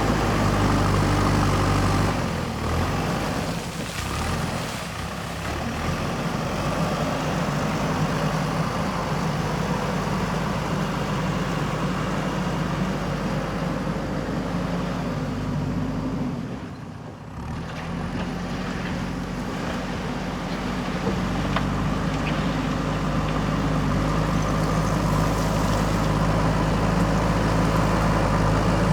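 JCB backhoe loader's diesel engine running steadily. The sound weakens for a few seconds early on and drops briefly about 17 seconds in before coming back.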